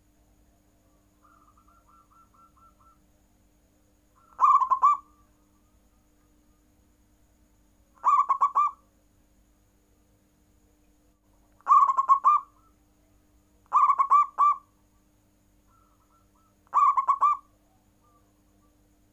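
Zebra dove (perkutut) song: five short phrases of quick cooing notes, each under a second and a few seconds apart. About a second in there is a fainter run of short, higher notes.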